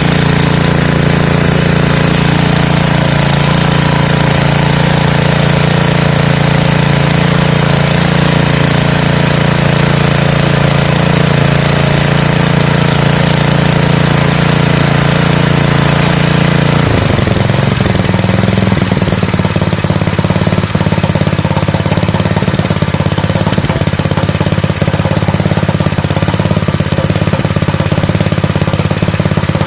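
Fujihama 7 HP single-cylinder petrol engine running steadily after its won't-start repair, now fit to drive the water pump. A little over halfway through its speed drops and it carries on running at a lower speed.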